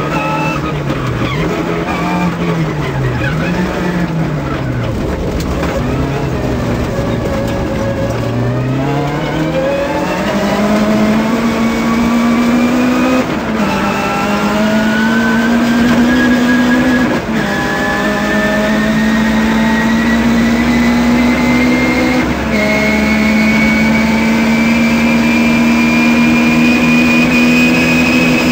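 Citroën Saxo rally car's engine, heard from inside the cabin. Revs rise and fall through bends for the first several seconds, then the car accelerates hard down a straight: the engine pitch climbs steadily through three upshifts, each a brief drop in pitch.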